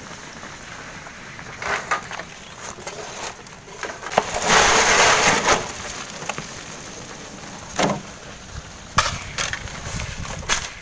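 Gravel tipped from a steel wheelbarrow, the stones pouring out and rattling down a rocky slope in one loud burst of about a second and a half, about four seconds in. Scattered single knocks and clatters of stones and the wheelbarrow come before and after it.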